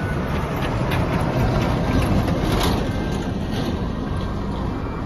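Box truck driving past on a tarmac road, engine and tyre noise. It swells to its loudest about two and a half seconds in as it goes by, then eases off.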